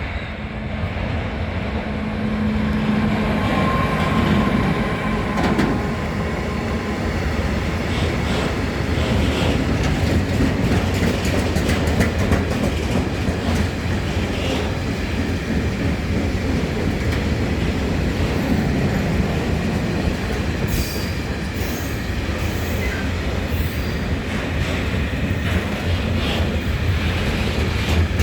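Freight train of Eas high-sided open goods wagons rolling past: a steady wheel rumble with clickety-clack over rail joints and occasional wheel squeal.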